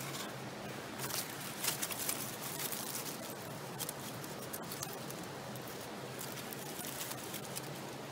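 Mountain stream running steadily, with scattered short rustles and crackles, busiest about one to two and a half seconds in.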